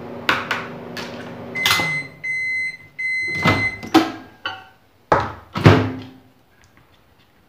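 Microwave oven running with a steady hum, then finishing its cycle with three beeps. This is followed by several sharp clunks as the door is opened and the mug is taken out and set down.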